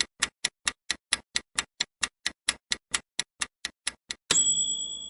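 Quiz countdown timer sound effect ticking quickly, about four to five ticks a second, then a bright ringing ding near the end that signals time is up.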